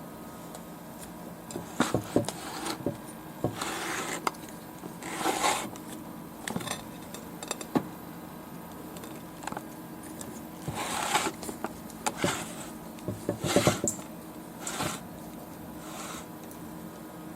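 Objects being handled at close range: irregular clicks, light knocks and short rubbing or scraping sounds, coming in two spells, one a couple of seconds in and one past the middle.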